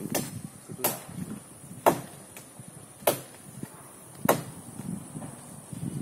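Hand chopping into a tree trunk: four sharp, clean strokes about a second apart, with lighter knocks in between. There is no chainsaw.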